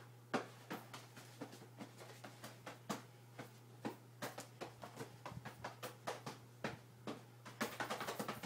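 Rapid, irregular slaps and thuds of fists and hands striking a person's arms and body, several a second.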